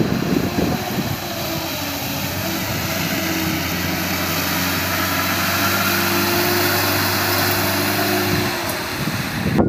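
Engine of an old Toyota FJ-series Land Cruiser running at a steady, even pace while the 4x4 drives along a muddy field track, over a constant hiss. It grows slightly louder as the vehicle nears, then cuts off abruptly near the end.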